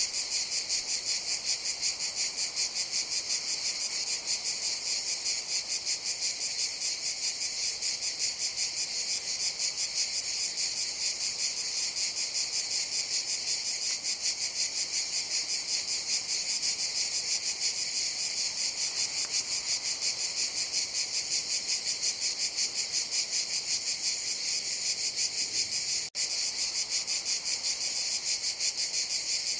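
Cicadas buzzing in a dense, steady chorus with a fast pulsing shimmer, high-pitched and unbroken apart from a split-second dropout near the end.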